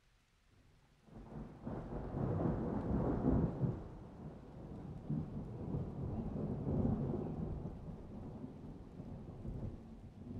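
Wind gusting across the microphone: a low buffeting noise that sets in about a second in, is loudest for the next couple of seconds, then carries on in uneven gusts.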